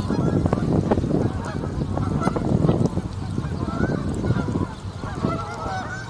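Canada geese honking, many short overlapping calls in irregular succession, over a steady low rumble.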